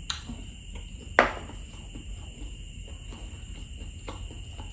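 A drinking glass set down on a hard tabletop with one sharp knock about a second in, a lighter click just before it. A steady high-pitched whine runs underneath.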